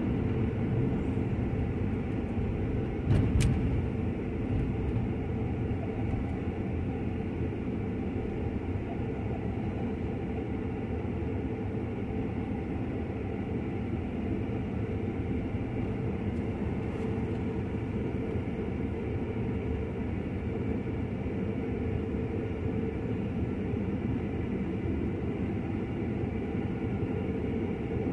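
Inside a car's cabin: steady low road and engine rumble while driving, easing off a little as the car slows to a stop and sits at a traffic light. A brief knock about three seconds in.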